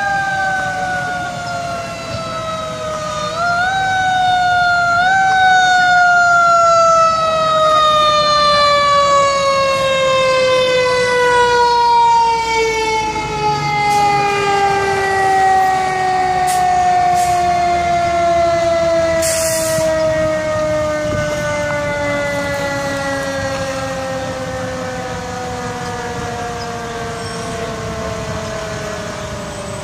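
Fire engine's mechanical siren winding down, its pitch falling slowly and steadily, with two brief upward jumps about three and a half and five seconds in. A short hiss about nineteen seconds in.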